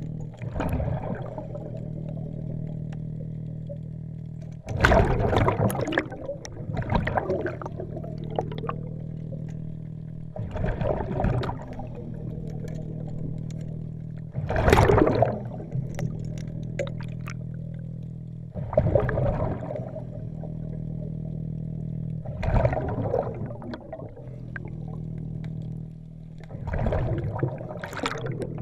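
Diver breathing underwater on a hookah regulator: loud bubbling bursts of exhaled air roughly every four seconds, over a steady low hum.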